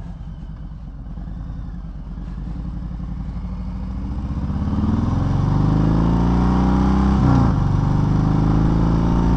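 2018 Harley-Davidson Sport Glide's Milwaukee-Eight 107 V-twin running through TAB Performance baffled mufflers, pulling away from a stop. The exhaust note rises and gets louder as the bike accelerates, breaks briefly for a gear change about seven seconds in, then pulls on steady and loud.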